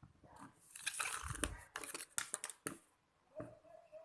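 Close rustling and crinkling handling noises with a few sharp clicks, loudest through the middle second or two.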